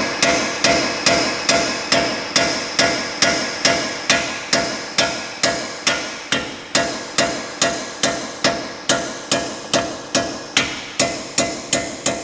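A hand hammer striking a steel wheel stud in an even run of ringing metal-on-metal blows, about three a second, driving the stud into the wheel hub flange.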